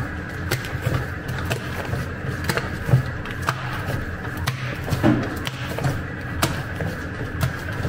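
Electric dough mixer running, its motor humming steadily as the kneading hook turns a soft, elastic high-hydration focaccia dough in the steel bowl, with a short knock about once a second. The dough is at the end of kneading, with the salt and second water already worked in.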